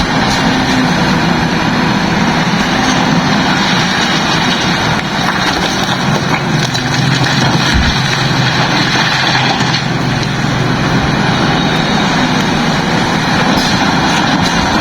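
A heavy diesel engine running steadily and loud, its pitch shifting slightly a few times.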